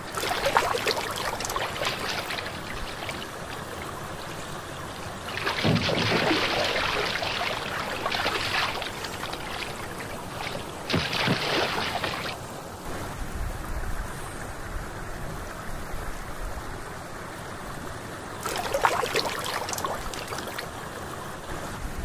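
Water splashing and trickling around a hand in shallow water, in four bursts over a steady low hiss.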